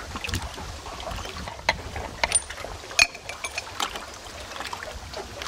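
Scattered light metallic clicks and taps of a spark plug wrench on the spark plugs as they are loosened and pulled from an old outboard motor, irregularly spaced, over a faint steady background noise.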